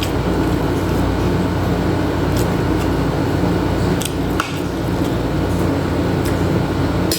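Steady machine hum, like a room air conditioner or fan, with a few short sharp clicks scattered through it.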